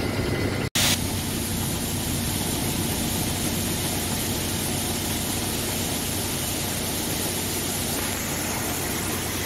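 Heavy engine running steadily at idle under a constant hiss, with a brief cut-out about a second in. Near the end a higher hiss comes in as shelled corn pours out of the truck's box.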